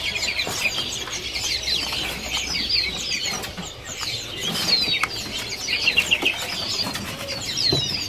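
Many small caged songbirds chirping together, a constant overlap of short, quick, down-slurred high calls, with faint clicks and fluttering among the cages.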